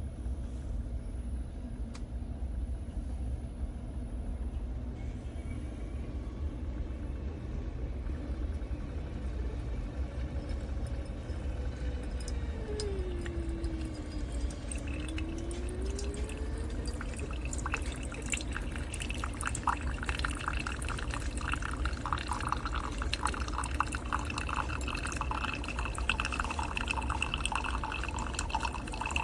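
Ninja Pods & Grounds single-serve coffee maker brewing: a steady low hum, a tone that dips and rises again near the middle, then coffee streaming and dripping into the cup from about two-thirds of the way in.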